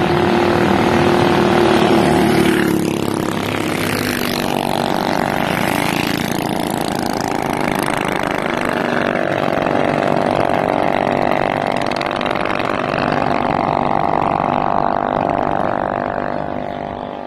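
Minibike's Tillotson 212cc single-cylinder four-stroke engine running under throttle. It is loudest in the first two or three seconds, then runs steadily with its pitch shifting, and fades near the end as the bike pulls away.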